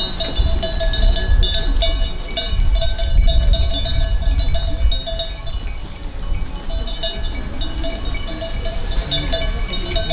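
Bell-like metallic tones chiming over and over at a few fixed pitches, above a steady low rumble.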